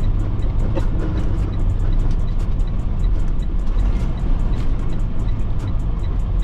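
Steady low drone of a semi truck driving, heard from inside the cab, under background music with a fast, even ticking beat.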